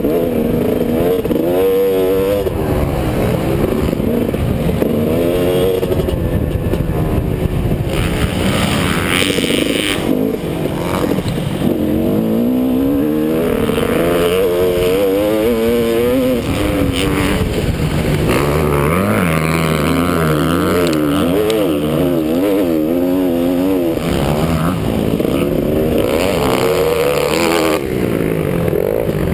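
Motocross bike engine heard from onboard, revving up and down over and over as the rider accelerates and backs off around the dirt track, with heavy wind rumble on the microphone.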